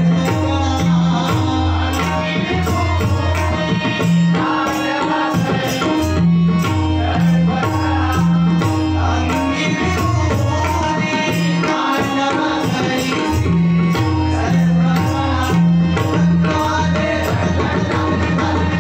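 Tabla and pakhvaj playing a rhythmic instrumental bhajan passage together, with deep bass strokes and ringing pitched drum tones in a repeating pattern, under a held melody line.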